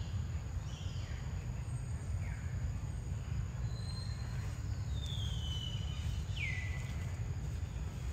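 Outdoor background noise, a steady low rumble, with a few faint high calls that fall in pitch; the longest comes about five seconds in.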